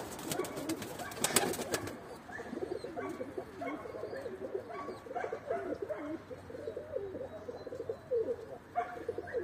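Domestic pigeons cooing over and over in low, wavering calls. A few sharp clicks come in the first two seconds.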